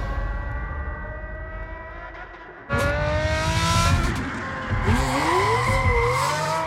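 Sports car engine accelerating hard, its pitch rising, with tyre squeal. It fades down over the first two and a half seconds, then comes in suddenly loud and revving, with squeal wavering through the second half.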